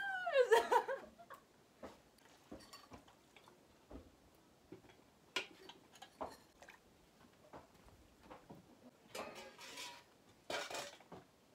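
A woman laughing for about a second, then scattered clinks, knocks and short scrapes of metal cups and a plate being handled.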